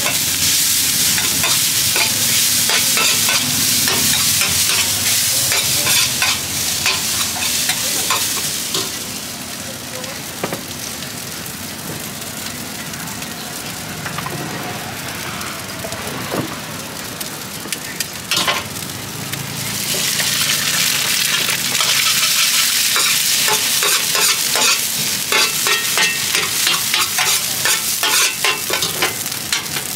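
Fried rice with cabbage and greens sizzling in an oiled steel wok, with a metal spatula scraping and clacking against the pan as the rice is stirred and tossed. The sizzle eases off for several seconds in the middle, then comes back loud with rapid spatula strokes.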